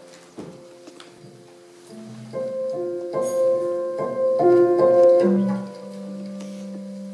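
Slow piano music with long held notes, quiet at first and fuller from about two seconds in.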